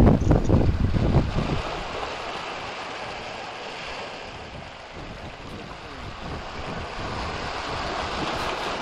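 Wind buffeting the microphone for the first second or so, then the steady wash of ocean surf breaking on the beach, growing a little louder near the end.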